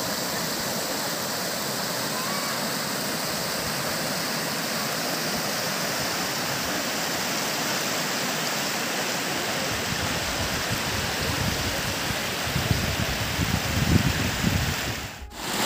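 Shallow river rapids rushing steadily over rock ledges. Low rumbles come in near the end, and the sound cuts out for a moment just before it finishes.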